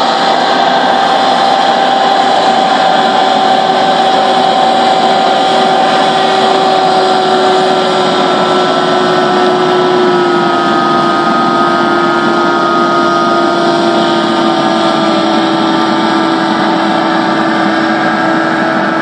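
Rescue hovercraft's engine and lift/thrust fan running at speed: a loud, steady drone whose hum sinks slowly in pitch, with a higher whine joining in about halfway through.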